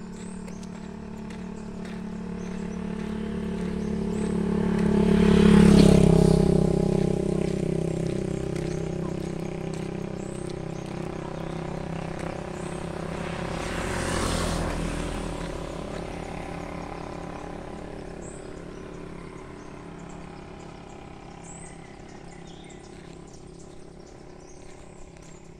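Motorcycles passing by on the road. One grows louder, passes close about six seconds in with a drop in engine pitch, and fades away. A second, quieter one passes about fourteen seconds in.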